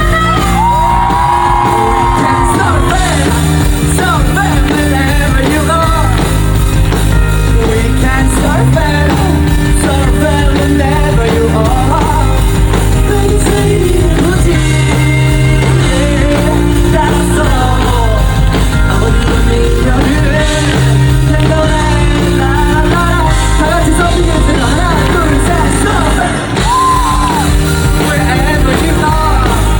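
Live band playing a pop-rock song loud and without a break: bass, drums and held chords, with a gliding melodic line and wordless singing or shouts over them.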